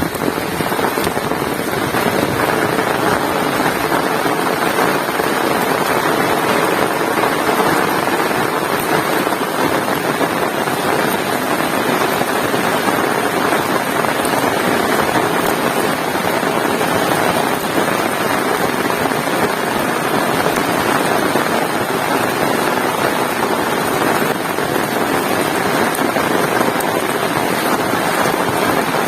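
Heavy rain falling, a loud, steady, dense hiss with no let-up.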